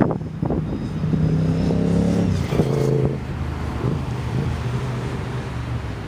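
Engine of a road vehicle on the adjacent road, running as it drives past and accelerating, its note shifting in pitch about two to three seconds in.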